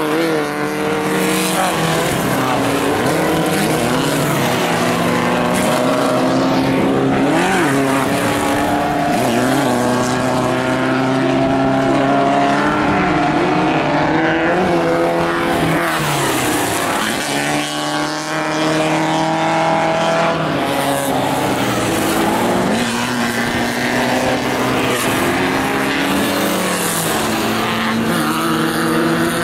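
Several 1600 cc off-road race buggy engines revving hard, their pitch repeatedly climbing and dropping as they accelerate and shift gears, with two or more engines overlapping at once.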